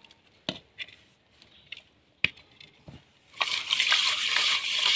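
A few sharp ticks as rock salt is sprinkled onto cut sardines. About three and a half seconds in, a dense, gritty wet scrubbing starts: the sardines are being rubbed with rock salt and water in an earthen clay pot to clean them.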